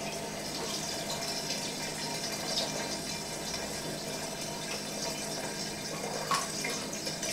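Nocino (walnut liqueur) pouring in a steady stream from a large jar through a filter, with a brief click about six seconds in.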